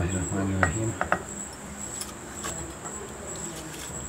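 Sugared grapefruit pulp being scraped with a spatula from a stainless steel bowl into a glass jar: soft wet plops and a few light clicks of spatula against bowl and glass, over a faint steady high whine.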